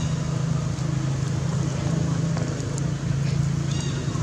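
A motor running steadily, giving a constant low hum, with a few faint short high chirps near the end.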